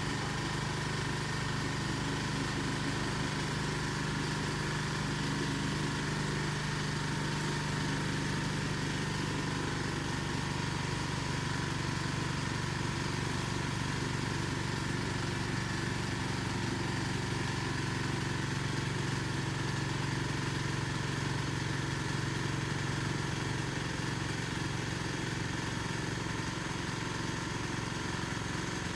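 Steady engine drone running at a constant speed, with a thin high whine above it that drops out for a couple of seconds midway.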